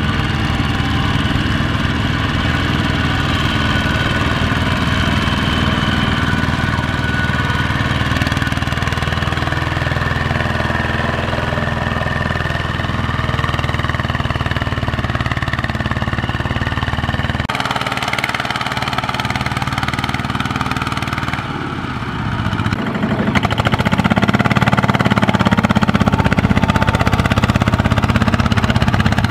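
Single-cylinder diesel engines of two-wheel walking tractors running steadily under load as they drag loaded rice trailers through deep mud. The engine sound changes abruptly about two thirds of the way through and again a few seconds later.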